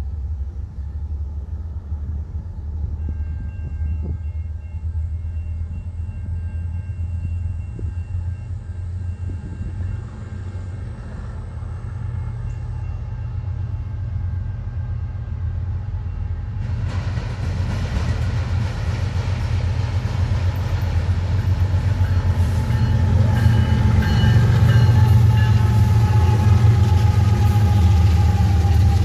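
BNSF diesel locomotives hauling a double-stack container train, approaching and then passing close by. A steady low rumble grows suddenly louder and fuller a little past halfway as the train draws near, and keeps building as the locomotives go past.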